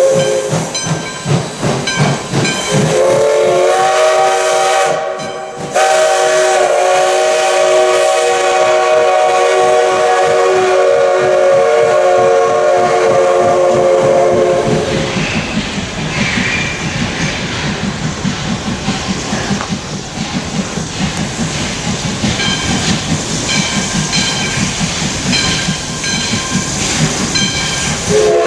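Steam locomotive No. 58's chime whistle, several tones sounding together, blows one long blast that holds for about twelve seconds, briefly broken near the start. After it stops, the engine's exhaust chuffs steadily as it works along, and the whistle starts again at the very end.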